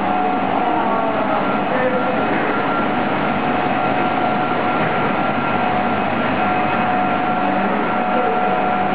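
PVC pipe extrusion line running: a steady, loud machinery din with a constant high whine at two fixed pitches.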